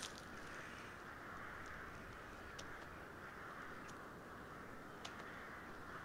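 Faint outdoor field ambience: a steady soft hiss with a few small scattered ticks.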